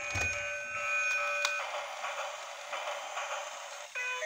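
Battery-powered light-up toy train playing its tinny electronic tune through a small speaker, over the whir of its drive motor. The tune breaks off about a second and a half in, leaving the motor whirring, and starts again near the end.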